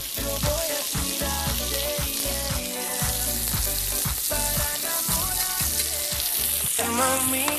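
Food sizzling in hot pans on the stovetop, a steady frying hiss, over background music with a steady beat.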